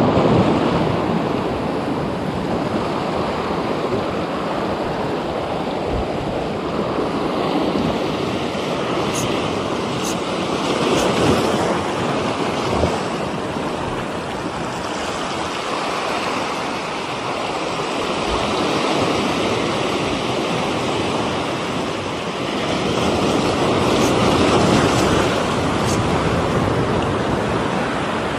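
Surf washing onto a beach: a steady rush of breaking waves that slowly swells and eases.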